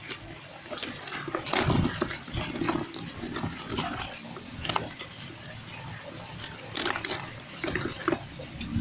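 Live fish in a basin flapping and slapping wetly against each other and the basin's sides while a hand sorts through them, with irregular squelches, knocks and a few louder thrashing bursts.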